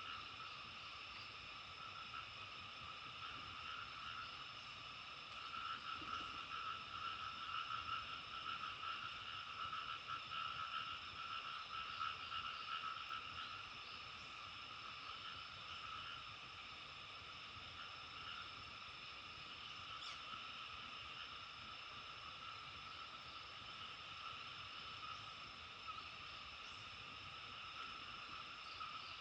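Dense chorus of frogs calling without a break, swelling louder for several seconds in the first half, then settling back to a steady level.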